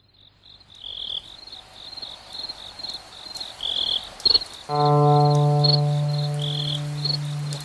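Crickets chirping in a fast, steady pulse, with a longer, lower cricket chirp every few seconds, fading in at the start. About two-thirds of the way through, a guitar chord is struck and rings on over the crickets.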